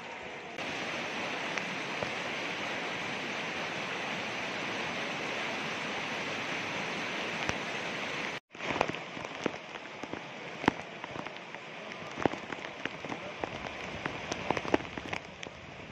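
Heavy rain falling in a steady hiss. About halfway, after a brief break, it gives way to muddy floodwater rushing down steps and through a railing, with irregular sharp splashes.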